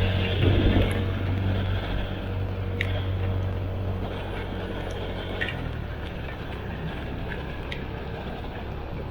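A vehicle engine running with a steady low hum, under an even wash of noise from heavy rain and water. The engine hum is strongest at first and fades after about five seconds, with a few sharp clicks.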